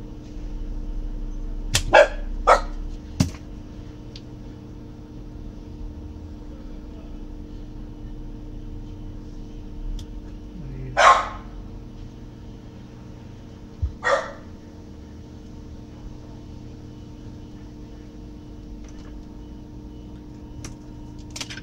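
A spring-loaded solder sucker snapping as it is fired, three times in quick succession, over a steady hum. Two short, louder sounds of unclear source follow later.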